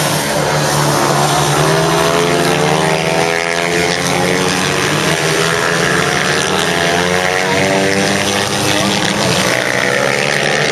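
Several supermoto race motorcycles racing past, their engines loud and overlapping, each rising and falling in pitch as the riders rev through the corner.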